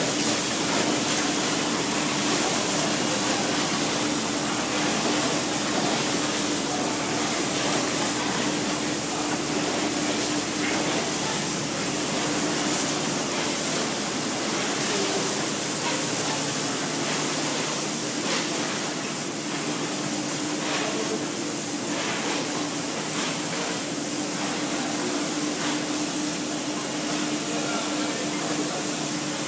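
Silicon steel slitting line running: a steady mechanical whir with a steady hum as the steel strip feeds through the rotary slitter knives and on toward the recoiler.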